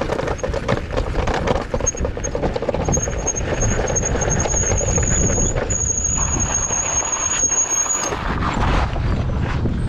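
ONYX RCR electric bike ridden over a rocky trail: a rough low rumble throughout, with a steady high-pitched squeal lasting about six seconds from about two seconds in, broken briefly in the middle.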